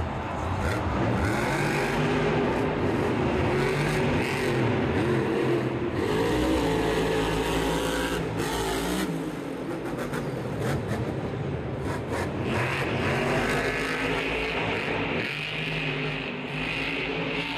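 Monster truck's supercharged V8 engine revving hard, its pitch rising and falling again and again as the throttle is worked.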